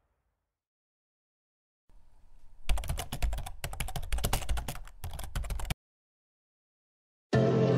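Rapid typing clicks, like keys struck on a keyboard, starting about two seconds in and running for about three seconds before cutting off. Music begins near the end.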